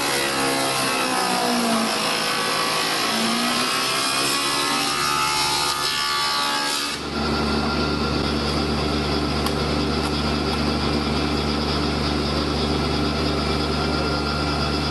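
Spindle moulder cutting a profile into the curved edge of a wooden workpiece: a pitched machining whine that dips and recovers in pitch as the wood is fed into the cutter. About seven seconds in it changes abruptly to a steady, even hum of the machine running.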